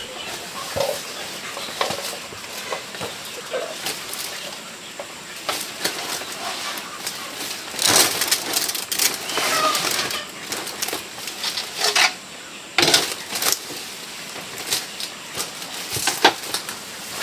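Irregular rustling, scraping and sharp knocks of handwork, with chickens clucking softly now and then. The loudest rustles come about eight to ten seconds in and again near thirteen seconds.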